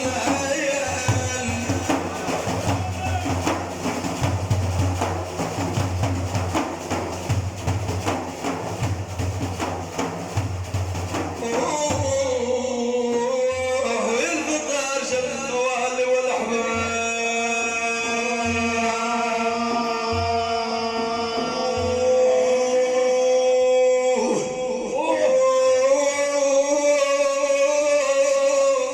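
Instrumental music interlude between sung verses of a madih song. Busy drumming runs for about the first twelve seconds, then a long-held melody with a few scattered drum strokes.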